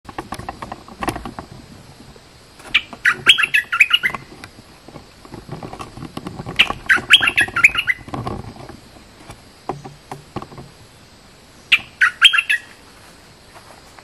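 Caged bulbul singing three short phrases of quick, warbling notes, each a second or so long and a few seconds apart, with softer lower sounds in between.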